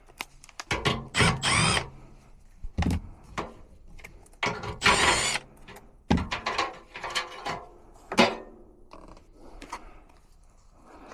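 Tools and parts being handled while an HVAC run capacitor is swapped: scattered clicks and knocks, with two noisy stretches of about a second each, near one second and near five seconds in.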